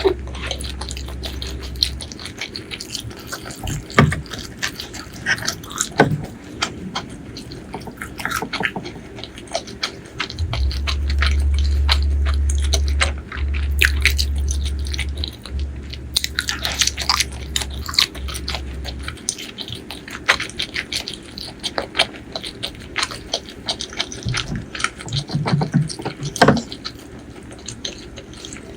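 Close-miked mukbang eating: wet chewing and biting with many small smacks and crackles. A steady low rumble runs under it for several seconds in the middle.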